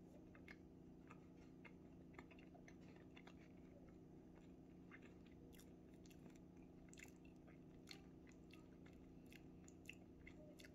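Faint chewing of a bite of MRE maple muffin top with cream cheese icing, with scattered soft mouth clicks, over a low steady hum.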